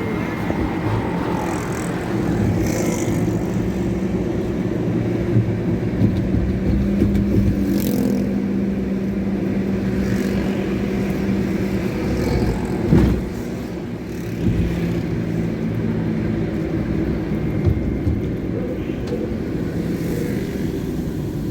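Street traffic: car and motorbike engines running and passing in a steady low rumble. There is one sharp thump about two-thirds of the way through.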